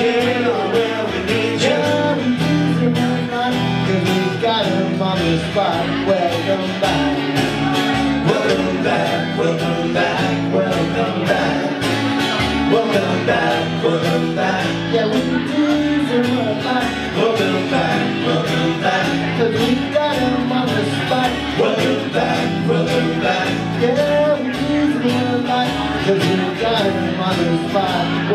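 Live band music: several acoustic guitars strumming through an instrumental break in the song, at a steady, even loudness.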